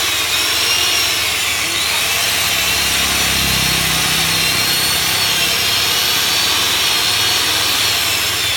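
Electric chainsaw (100 V) running at full speed, a loud, steady high-pitched motor whine that wavers a little in pitch and eases off near the end.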